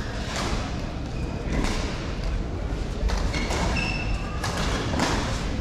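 Badminton being played on an indoor court: sharp racket hits on the shuttlecock and thuds of footsteps, about five in all, with a couple of short shoe squeaks on the court floor around the middle.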